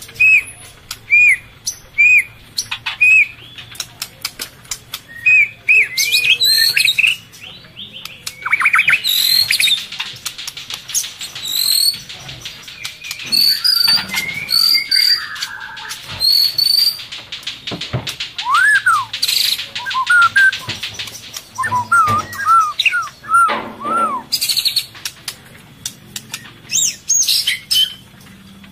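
Murai birds calling: short hooked chirps repeated about once a second, then a long rapid buzzy chatter with some wing flutter, and later slurred whistled notes.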